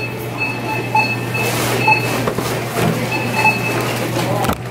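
Supermarket checkout lane: a steady hum under short, high electronic beeps that recur every second or so, like barcode scanners, with knocks and a brief rustle as groceries are set down and handled on the conveyor belt.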